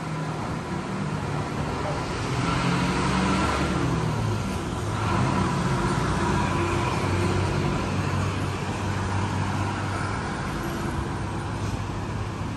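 Road traffic: motor vehicle engines running and passing, a low steady engine hum under a swell of engine and tyre noise a few seconds in.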